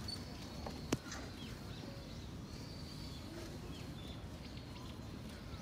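Outdoor background hum with small birds chirping faintly now and then, and one sharp click about a second in.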